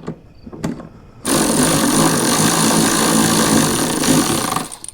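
A handheld power tool runs steadily for about three and a half seconds, starting a little over a second in and stopping abruptly, after a few light clicks of hardware being handled.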